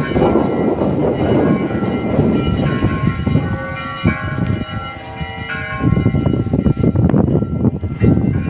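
Church bells ringing: several tones at different pitches sounding and overlapping over a low rumbling background.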